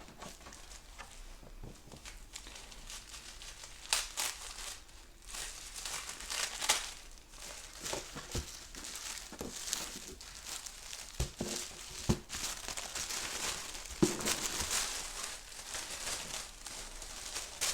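Paper being unwrapped by hand: irregular crinkling and rustling of wrapping paper, with a few tearing sounds and short knocks as the packaging is pulled open.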